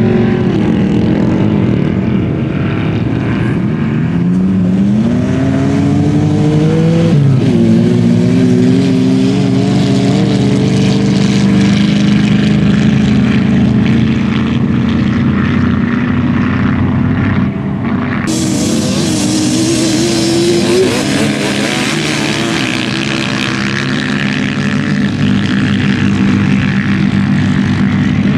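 Sand rail dune buggy engines running loud, one climbing in pitch as it accelerates a few seconds in and then holding steady. A louder hiss comes in suddenly about two-thirds of the way through.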